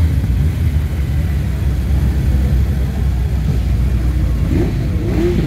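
Suzuki GS1000 race bike's air-cooled inline-four engine idling with a steady, lumpy low rumble while the bike waits on the drag start line.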